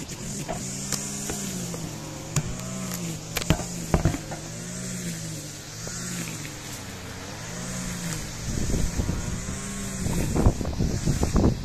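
A low engine-like hum whose pitch rises and falls about once a second, then crackling rustle and footsteps for the last few seconds as the camera is carried close along the hedge.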